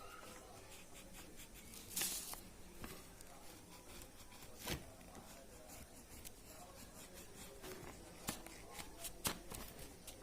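Faint scratchy strokes of colouring on paper, with a brief louder scrape about two seconds in and light taps and clicks of paper and the pen or crayon being handled.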